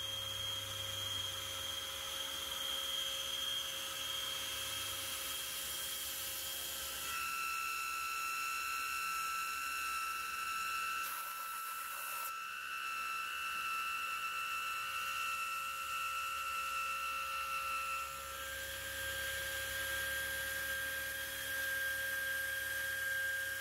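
End mill on a Tormach PCNC 770 CNC mill cutting a large hole in a metal plate, with a steady high-pitched squeal from the cut. The squeal steps down in pitch about seven seconds in and back up about eighteen seconds in, and the cutter keeps cutting through it.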